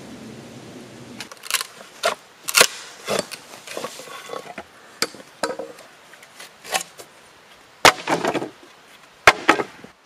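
Pieces of hand-split wood knocking and clattering together: a dozen or so sharp, irregular knocks and clacks, some with a brief ring, the sound of thin shingles being handled and set down.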